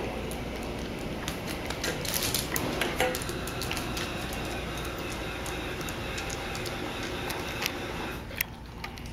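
Dog claws clicking and scrabbling irregularly on a hardwood floor as two dogs tussle over a plush toy, over a steady background noise.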